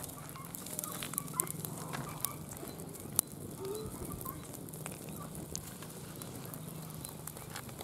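Dry palm fronds burning and smouldering, crackling with scattered sharp pops and one louder snap about three seconds in, over a faint steady low hum.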